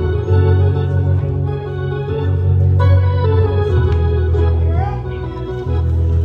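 Electronic keyboard played with an organ sound: sustained chords over a bass note that changes every second or two, ballgame organ style.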